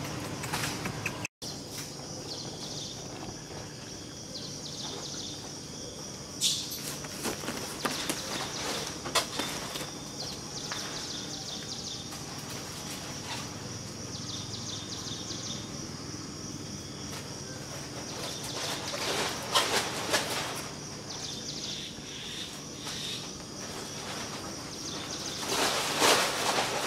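Outdoor ambience: a steady high insect drone with a few rustles and knocks scattered through, the loudest cluster near the end.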